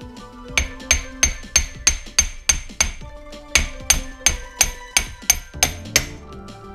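Sharp metal-on-metal knocks with a ringing edge, about three a second, in two runs of eight with a short pause between, as a CV joint is worked onto a Land Rover Defender front half shaft.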